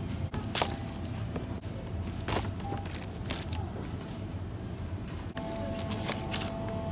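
Supermarket background: a steady low hum with a few sharp clicks and knocks of packaged goods in a plastic shopping basket, and a steady electronic tone held from about five seconds in.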